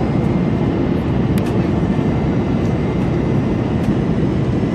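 Steady low rumble of jet engine and airflow noise heard inside an airliner's cabin on approach to landing, with a couple of faint clicks.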